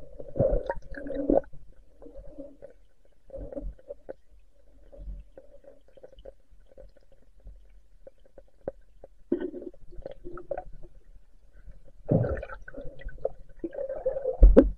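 Muffled underwater gurgling and bubbling heard through a submerged camera while a spearfisher swims in a shallow river. It comes in irregular bursts with small knocks, the loudest just after the start and toward the end, where there is a low thump.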